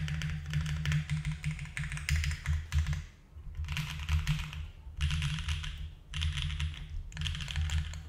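Typing on a Neo70 mechanical keyboard with Mode Obscuras switches, an aluminium plate, no case foam and GMK Serika keycaps. A fast, steady patter of keystrokes runs for about three seconds, then comes in four short bursts with brief pauses between.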